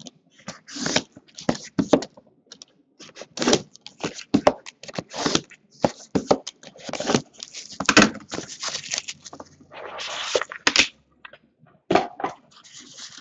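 A sealed cardboard trading-card box being cut and pried open with a knife and handled: irregular clicks, knocks and scraping, with longer stretches of rustling and tearing of the wrap and cardboard.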